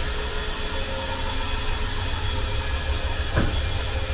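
Drive mechanism of a cable-hung lift bed running steadily as the bed is raised, with one short knock about three and a half seconds in.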